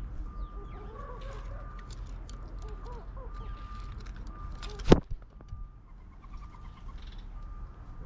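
Grey go-away-birds flapping and scrabbling on a wooden feeder, with many short bird calls throughout. About five seconds in there is one sharp, loud knock, the loudest sound.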